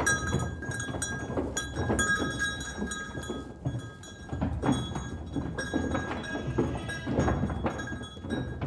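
Bells on a flock of grazing livestock clanking and ringing irregularly, with light clinks and knocks as the animals move.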